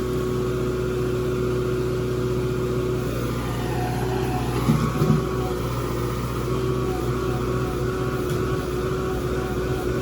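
Engine of a digging machine running steadily at a constant pitch, with a couple of short knocks about five seconds in.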